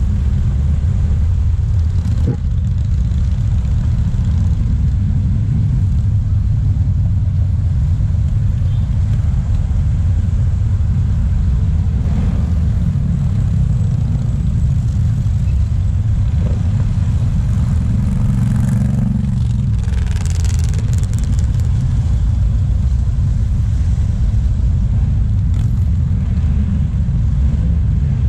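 Steady low rumble of a long column of motorcycles riding past on a multi-lane road, mixed with car traffic.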